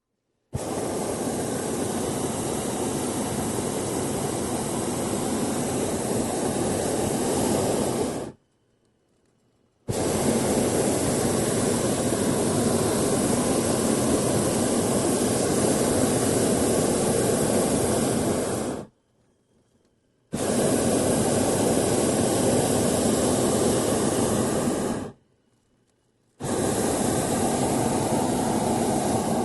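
Hot-air balloon's propane burner firing in four long blasts, each cutting in and out sharply, with short quiet gaps between them.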